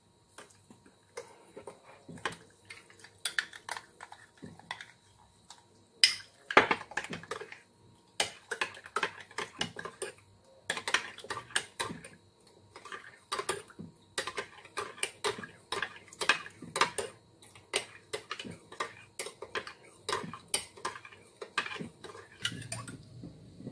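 Metal spoon stirring in a small glass mug, clinking and scraping against the glass over and over as powdered milk is dissolved in water. The clinks begin about two seconds in and come thick and fast from about eight seconds on.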